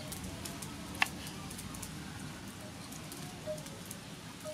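Kitchen knife cutting limes on a wooden cutting board: one sharp tap of the blade on the board about a second in, then faint small clicks.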